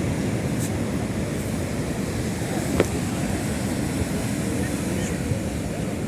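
Sea waves and surf making a steady low rumble, with wind buffeting the microphone. There is a single sharp click about three seconds in.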